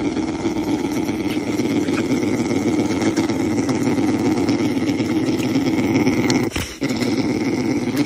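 Brown bear cub humming steadily while it suckles on a man's hand, the nursing hum cubs make when comforted. It breaks off briefly about six and a half seconds in.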